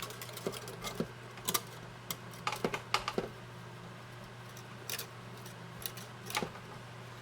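Irregular small clicks and light metallic taps as wire and small metal tools are handled at a mandolin's cleat-clamping jig, over a steady low hum.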